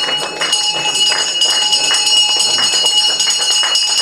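A ceremonial bell being rung continuously: rapid strikes of the clapper over steady, sustained ringing tones.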